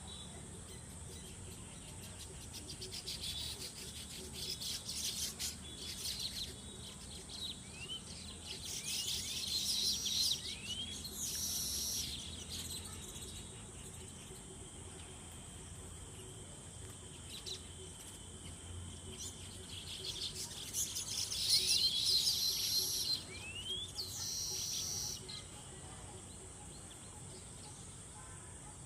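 Baya weaver song: two bouts of rapid high chattering laced with short rising whistles, each ending in a buzzy wheeze about a second long, over a steady high insect whine.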